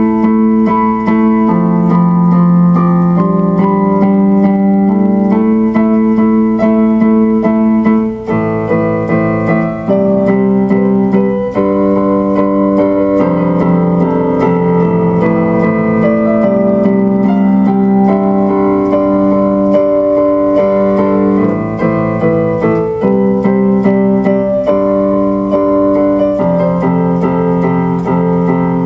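Electronic keyboard playing slow, held chords that change every second or two.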